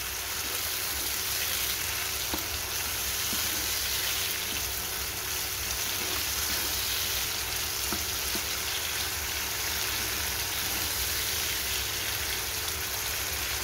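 Chopped onions and tomatoes sizzling steadily in hot oil in a nonstick pan, stirred with a spatula that makes a few light taps.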